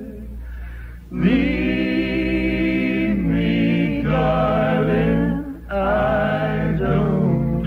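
A vocal group singing long held notes in close harmony over a musical backing: softer for the first second, then about four sustained chords, each one to two seconds long, with brief breaks between them.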